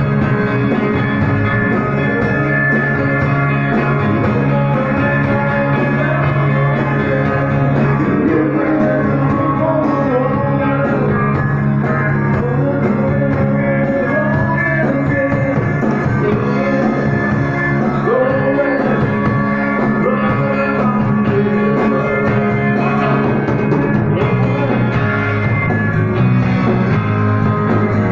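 Live rock band playing loud: electric guitars over drums.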